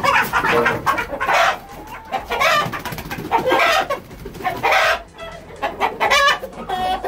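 Chickens squawking and clucking loudly in a series of harsh calls, the alarm calls of birds being caught and handled: a rooster is grabbed and carried upside down by its legs.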